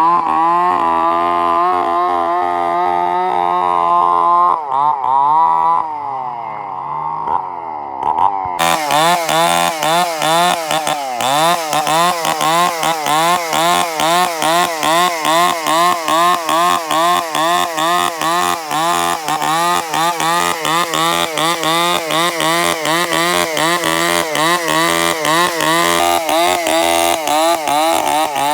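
Two-stroke chainsaw engine running at high revs; about five seconds in its pitch falls away as the throttle eases off, then about eight seconds in it revs back up and runs on under load, its pitch rising and falling a few times a second, as when cutting through timber.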